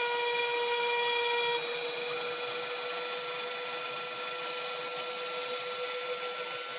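Homemade CNC router with a rotary-tool spindle engraving into a wooden board: a steady machine whine made of several tones. Some tones drop out about a second and a half in, and a new higher tone comes in about two seconds in.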